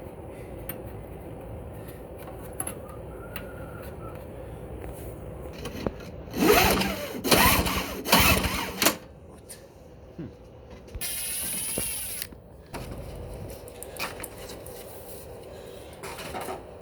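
A hand power tool run in three short bursts, its pitch wavering, followed by a high hiss lasting about a second.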